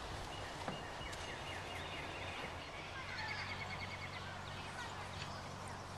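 Faint outdoor ambience: small birds chirping in quick trills and short whistles, over a steady low hum.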